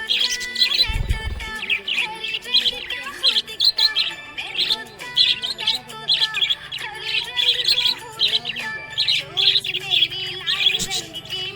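Budgerigar chirping and warbling in a quick, unbroken run of short chirps, with a brief low thump about a second in.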